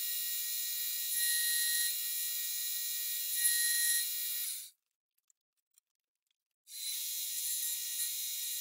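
Milling machine running an end mill through the edge of a metal plate: a steady high machine whine with the cut swelling louder twice. About halfway through it drops to silence for two seconds, then the milling resumes.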